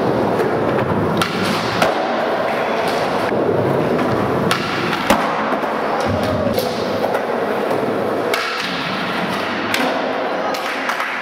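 Skateboard wheels rolling on a smooth concrete floor, echoing in a large hall. Sharp tail pops and board landings clack out every second or two.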